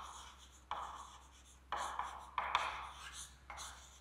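Chalk writing on a chalkboard: about four short spells of scratching strokes, with brief pauses between them.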